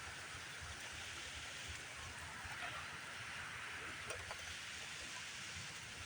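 Heavy rain falling steadily in a thunderstorm, an even hiss, with a couple of faint taps about four seconds in.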